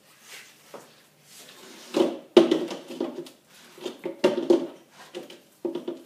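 Handling noise from a small minibar being turned and shifted on a tabletop: a few sharp knocks and stretches of squeaky scraping, the loudest knocks about two and a half and four seconds in.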